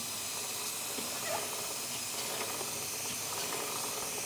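Aerosol motorcycle chain lube spraying in one long steady hiss onto the chain.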